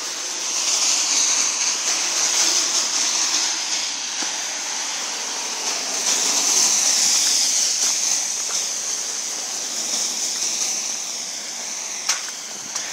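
Car tyres hissing on a wet, slushy road, swelling twice as traffic passes. A sharp click near the end.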